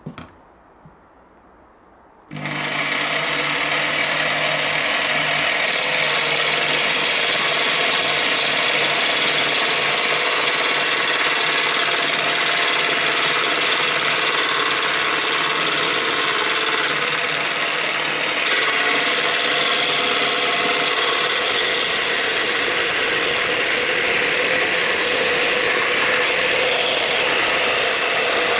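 Bosch jigsaw with an acrylic-cutting (PMMA) blade starting up about two seconds in, then running steadily as it saws through an acrylic sheet: a loud, dense motor and blade noise that holds level. A brief knock comes just before it starts.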